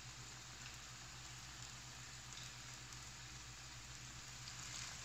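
Grated potato hash brown patties sizzling steadily in hot oil in a frying pan, with a low hum underneath.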